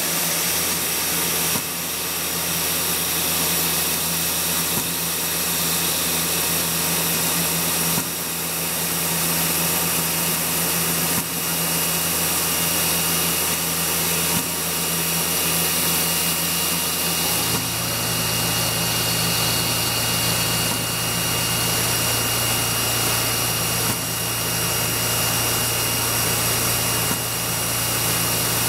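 CNC mill spindle running steadily as a tiny end mill cuts a latch profile into brass plate, over a steady hiss of compressed air from the coolant nozzle. A low hum steps up slightly in pitch a little past halfway, and the level dips briefly about every three seconds.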